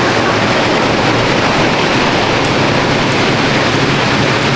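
Air bike fan whooshing steadily as an athlete sprints on it at high speed.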